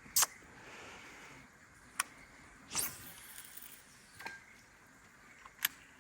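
Scattered sharp clicks and knocks, four in all, with a brief swishing noise a little under three seconds in, over faint outdoor hiss.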